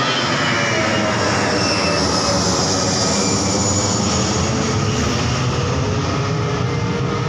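Twin-engine jet airliner climbing out after takeoff and passing overhead: a steady jet-engine roar with a high whine that falls in pitch as it goes over and away.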